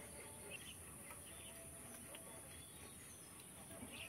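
Near silence: faint outdoor background with a few faint high chirps.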